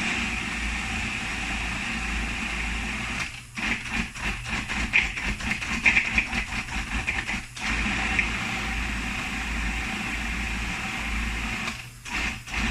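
Food processor running, blending a thick, dry chickpea brownie batter. It cuts out briefly twice, runs unevenly between those breaks, and stops near the end.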